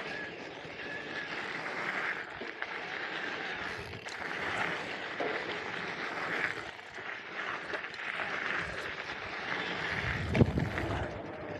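Electric mountain bike's tyres rolling over a gritty gravel track, a rough noise that swells and fades as the bike goes over the rollers. A loud thump with a low rumble comes about ten seconds in.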